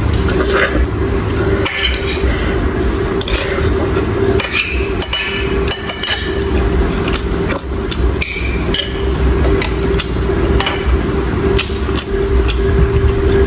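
Utensils clinking and knocking against a bowl while soup is eaten, in irregular sharp taps. A steady hum runs underneath.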